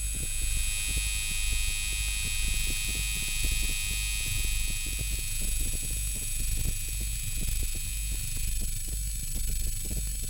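Electronic sound generated by a SuperCollider patch from database sound segments. A low throbbing pulse swells roughly once a second under several steady high whistling tones, and the middle tone fades out near the end.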